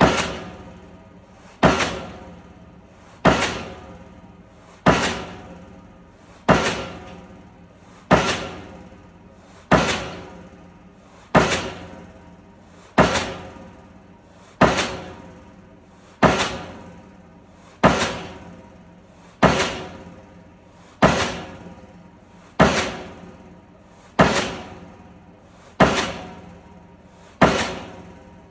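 D100 diesel pile hammer driving a pile: loud, heavy blows at a steady pace of about one every 1.6 seconds, each ringing on and fading before the next.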